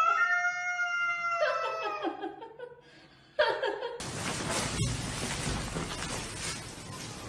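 A cat yowling: one long, high call that holds steady and ends about a second and a half in, followed by a few shorter cries. After a pause comes a steady hiss of background noise.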